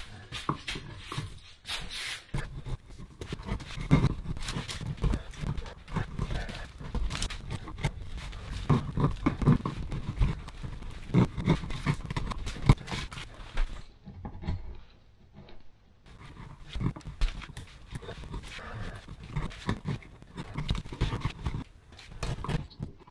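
Sharpened flathead screwdriver scraping and chipping into birch wood in quick, irregular strokes, with a short lull about fourteen seconds in.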